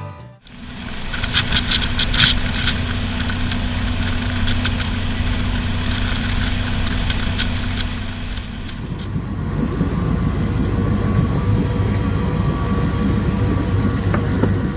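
Jet boat engine running steadily, with a few light clicks early on; about eight seconds in the sound turns rougher and noisier.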